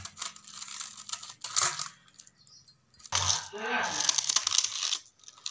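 Knife shredding a cabbage head held in the hand: quick, crisp crunching cuts through the leaves. They stop for about a second near the middle, then start again, denser.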